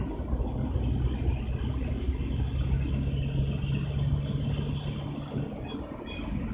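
Car driving, heard from inside the cabin: steady engine and road rumble, with a low hum that holds for a few seconds and stops near the end.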